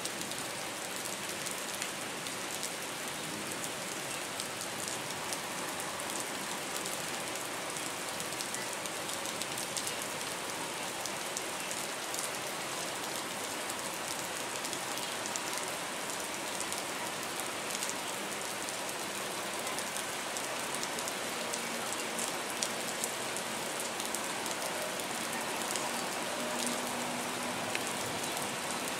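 Steady rain, an even hiss dense with the fine ticks of individual drops.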